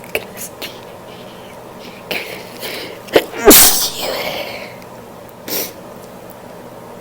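A woman sneezing. Quick catching breaths build up to a sharp catch and then one loud sneeze about three and a half seconds in, trailing off in a falling voice. A short sharp breath follows near the end.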